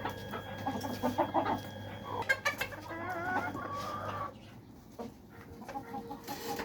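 Chickens clucking, with a rooster crowing once about three seconds in.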